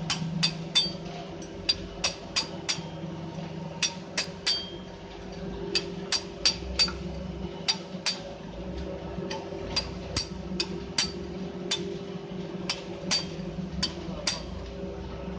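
Sharp metallic clinks and taps with a brief high ring, irregular at about one or two a second, as steel parts and tools knock together while brake shoes are fitted to a truck's rear drum brake. A steady low hum runs beneath.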